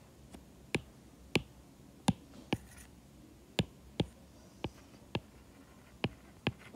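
Stylus tip tapping and clicking on a tablet screen during handwriting: about a dozen short, sharp clicks at uneven spacing, roughly two a second.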